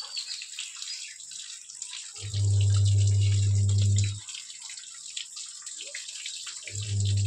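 Rain falling and dripping on a wet concrete terrace, a steady hiss full of small drip ticks. A low steady hum comes on abruptly about two seconds in, stops about two seconds later, and comes on again near the end.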